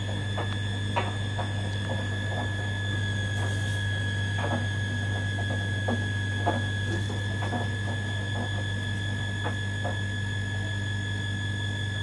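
Miele front-loading washing machine running at the start of a 95 °C cotton programme: a steady low hum under a constant high whine that dips slightly in pitch midway, with irregular light clicks and ticks about once or twice a second.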